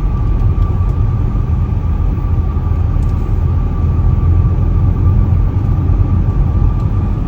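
Car driving slowly, heard from inside the cabin: a steady low rumble of engine and road noise, with a thin steady whine above it.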